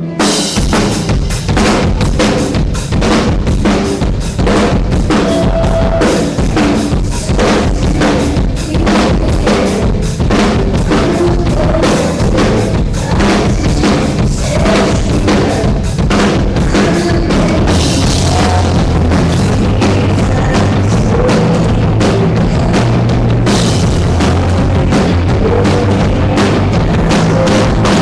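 Live rock band playing loudly, with the drum kit keeping a steady beat on bass drum and snare under the guitars and bass.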